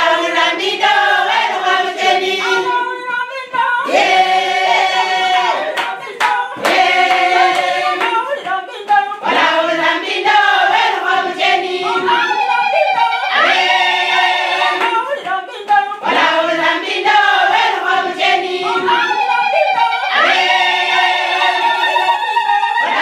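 A group of voices singing a song together, continuous and loud.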